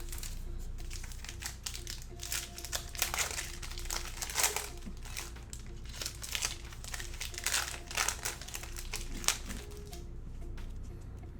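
Crinkling of a Panini Prizm football hobby pack's wrapper as it is torn open and handled, in a long run of irregular rustles that thins out near the end.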